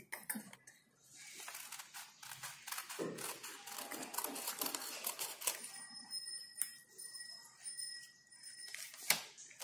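Small scissors snipping through craft paper, with the sheet rustling as it is handled; a faint, steady high ringing tone joins about halfway through.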